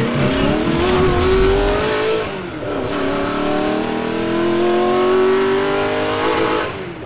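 Car engine accelerating hard, its pitch climbing, dropping at a gear change about two and a half seconds in, then climbing again before fading out near the end.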